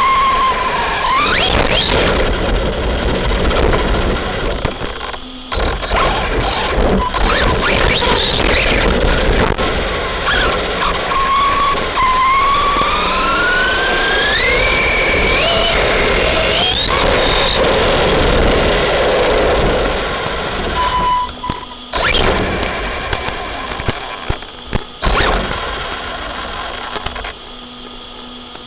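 Arrma Big Rock RC monster truck driving hard: its electric motor whines and climbs steeply in pitch under throttle, over continuous tyre and ground noise. It eases off after about twenty seconds, with a few sharp knocks near the end.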